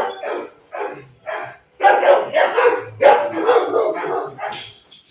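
Dog barking, a quick series of about ten loud barks.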